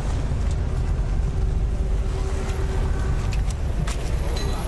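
Road traffic of cars and motor scooters under a heavy, steady low rumble, with scattered clicks and knocks and a faint steady tone in the first half.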